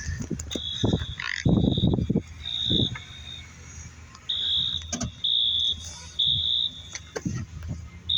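Fire alarm horns sounding: a shrill high electronic tone in repeated bursts of about half a second, some running together.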